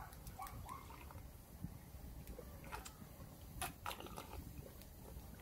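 Quiet swallowing with a few small clicks and knocks as makgeolli is drunk right after a toast.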